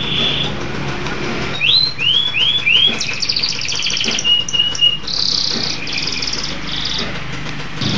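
Domestic canary singing a continuous song of fast trills, with four quick rising notes about two seconds in and a short steady whistle near the middle.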